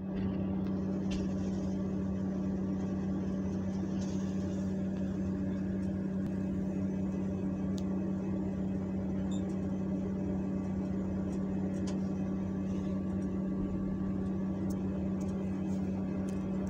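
Steady mechanical hum with one strong low tone, unchanging throughout, with a few faint ticks on top.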